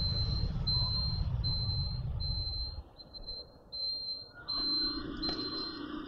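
An electronic beeper sounding a high, steady beep over and over, about one beep every three quarters of a second, over a low rumble that stops about 3 seconds in.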